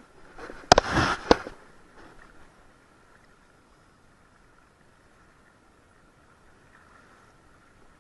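Towed inflatable tube bouncing over the water: a short burst of rushing and splashing with two sharp knocks about a second in, then only a faint steady hiss.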